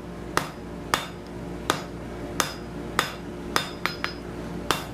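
Blacksmith's hand hammer striking a red-hot steel bar on an anvil, nine blows at a steady pace of about one every two-thirds of a second, each with a short ring, and a quick run of three lighter taps near the end. The smith is drawing out and cleaning up the bar's asymmetrical taper.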